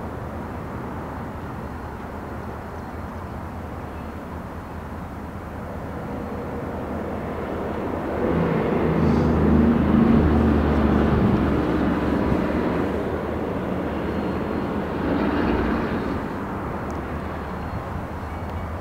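EMD diesel locomotive engine running as the locomotive approaches slowly, its drone growing louder about eight seconds in, loudest for a few seconds, then easing with a smaller swell near the end.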